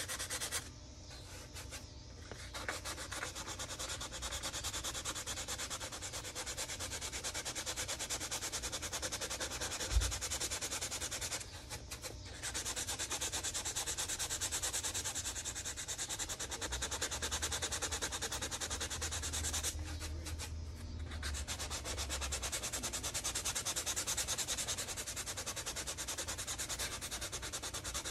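Hand sanding of styrene plastic with 180-grit sandpaper: quick, gentle back-and-forth rubbing strokes that break off briefly three times. A single low thump about ten seconds in.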